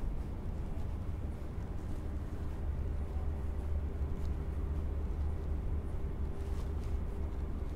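Steady low rumble of city background noise, with a faint steady hum coming in about three seconds in.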